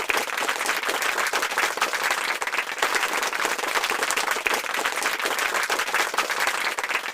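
Applause: many hands clapping at once in a dense, steady patter.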